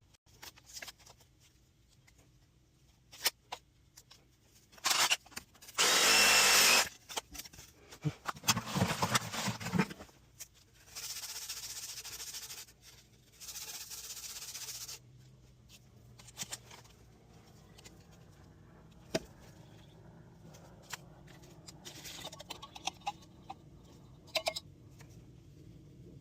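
A power tool running in short bursts during PVC pipe work: one loud burst with a whine about six seconds in, then two steady runs of a couple of seconds each. Scattered clicks and knocks of handling come between them.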